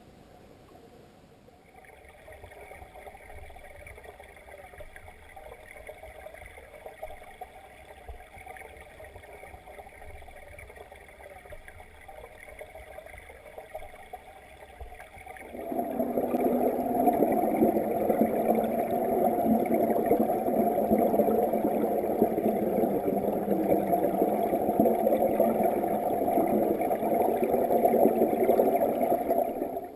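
Muffled rush of flowing stream water heard through an underwater camera's housing. It turns much louder and fuller about halfway through, then cuts off abruptly at the end.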